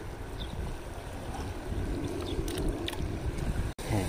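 Wind buffeting the microphone over the wash of sea water, broken by a brief sudden gap near the end.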